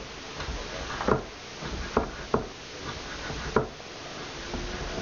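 Chef's knife slicing bacon strips and knocking against a wooden cutting board: four or so sharp, scattered knocks.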